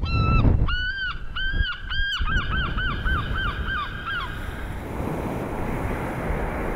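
A gull calling: four drawn-out calls, then a quick run of about ten short calls, over the steady wash of surf breaking on a beach. The calls stop about four seconds in and the surf carries on.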